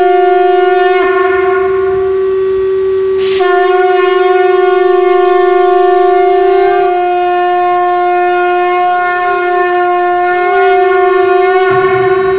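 Conch shell (shankha) blown in one long, steady note. The tone thins about a second in, comes back full a little after three seconds, and wavers slightly in pitch near the middle. This is the ritual conch blowing that goes with the aarti of a puja.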